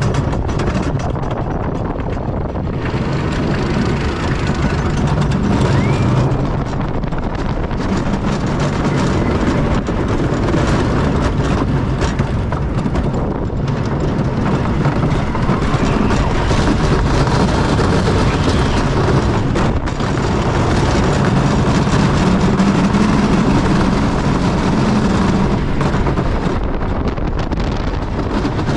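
Wooden roller coaster train running on its wooden track: a steady, loud clattering rumble of wheels on the track, which keeps up without a break.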